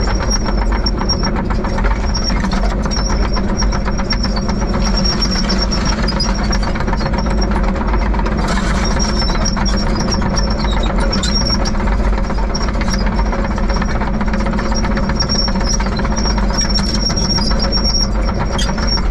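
Diesel engine of heavy earthmoving equipment running steadily, with a fast, even clatter over a low hum and a thin high whine.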